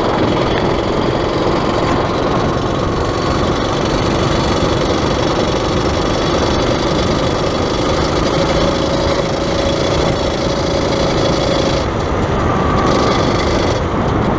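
Predator engine in an XR80R dirt bike running steadily as the bike rides along the road, with a dense rushing noise over it.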